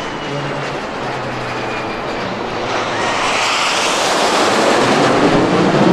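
A Tucano turboprop and a de Havilland Vampire jet passing overhead, their engine whine falling in pitch as they draw away. About halfway through, a broad jet rush builds and grows steadily louder as the Red Arrows' BAE Systems Hawk jets close in from behind.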